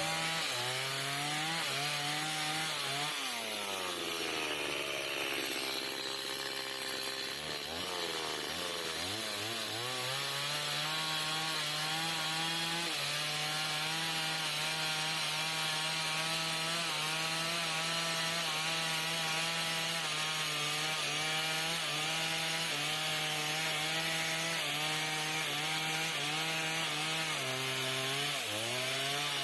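Stihl two-stroke chainsaw cutting timber. The engine drops toward idle for a few seconds near the start and revs back up. It then runs at high speed under load for most of the time, wavering slightly in pitch, with a brief dip near the end.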